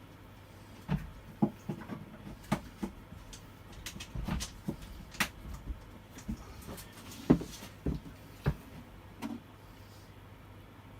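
A string of irregular clicks and knocks, about a dozen in eight seconds, from handling a chainsaw and its parts by hand, the sharpest about seven seconds in.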